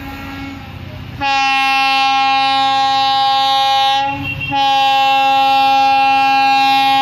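WDP4D diesel locomotive sounding its air horn in two long, loud blasts: the first starts about a second in and holds for about three seconds, and the second follows after a half-second break and runs on. Before the horn, the locomotive's diesel engine is heard running as it pulls away with its train.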